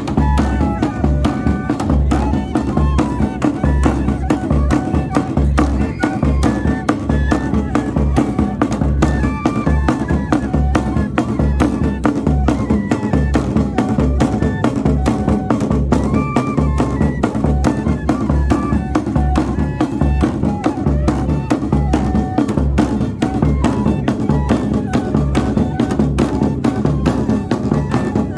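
Northeastern Brazilian fife band (banda de pífanos) playing: cane fifes carry a high melody over a steady, driving beat of zabumba bass drum and snare drum.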